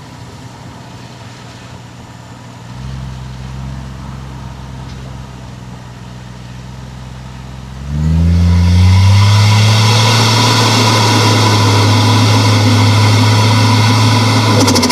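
Toyota 1JZ-GTE turbocharged straight-six pulling a car. It runs along at a moderate, steady level at first. About eight seconds in, it comes on hard with loud exhaust and turbo hiss and holds a steady pitch. At the very end the throttle closes and a rapid chattering turbo flutter begins.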